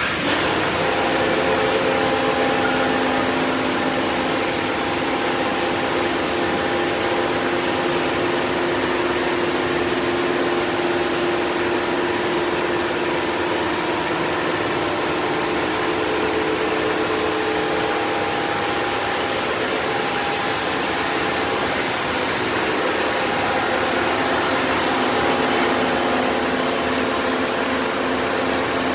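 CNC panel saw running: a steady rush of machine noise with several steady hum tones underneath.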